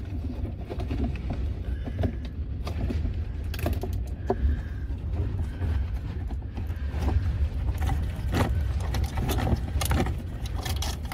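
Strong wind buffeting the microphone, a steady low rumble, with scattered clicks and knocks of handling and work on the boat.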